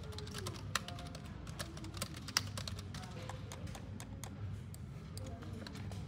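Typing on a low-profile computer keyboard: irregular key clicks, two sharper ones in the first half. Faint music plays underneath.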